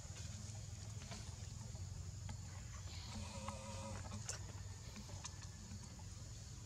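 Quiet outdoor ambience: a steady low hum with scattered faint clicks, and a short, faint animal call about three seconds in.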